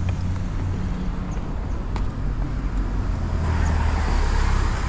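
A car driving past on the street below, its engine and tyre noise swelling in the last second or so, over a steady low rumble. A single sharp click about two seconds in.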